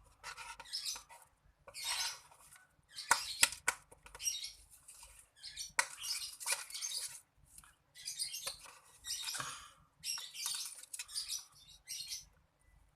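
Freshly made cotton candy slime squished and stretched by hand: a run of short, crackly, squelching pops, about one a second, some with sharp clicks.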